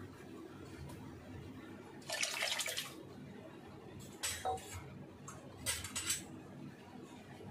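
Sambhar boiling in a wide metal pot, thick bubbles popping and gurgling in short bursts: a longer one about two seconds in, then shorter ones around four and six seconds.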